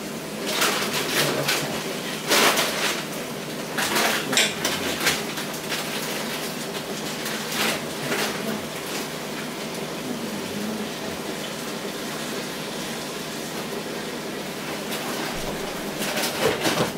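A metal fork clinks and scrapes against a stainless steel frying pan as pieces of steak are turned over the steady sizzle of the pan cooking. Near the end a glass pot lid clatters onto the pan.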